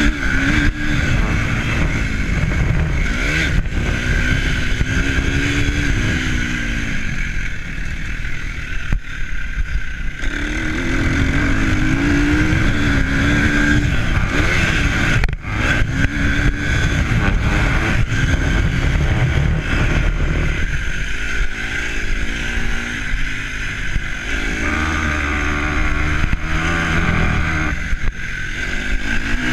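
A vehicle engine rising and falling in pitch as it accelerates and eases off, under heavy wind buffeting on the microphone. The engine note fades out a few times and comes back.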